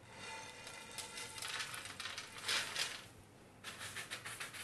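Hot caramelised nut mixture for nougatine sliding out of a frying pan onto parchment paper on a baking tray, a soft rustling hiss, followed near the end by a run of light scrapes and clicks as a spatula spreads it out.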